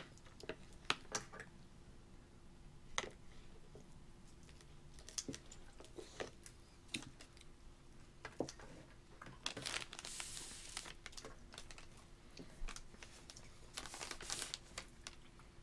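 A toddler eating at a high chair: scattered light clicks and taps of a small fork and fingers on a plastic tray and plate, with a couple of short crinkly rustles.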